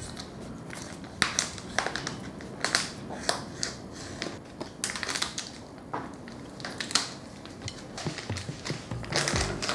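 Thick clear plastic film around a whole cured ham leg crinkling and rustling as it is slit open and peeled back by hand, in a string of irregular sharp crackles.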